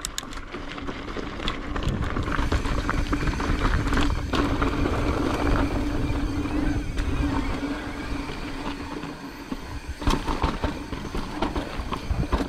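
Mountain bike ridden over a rocky trail, heard from a body-mounted action camera: wind rumbling on the microphone under the rattle of the bike, with sharp knocks from the tyres and frame striking rock, the clearest about four seconds in and around ten seconds.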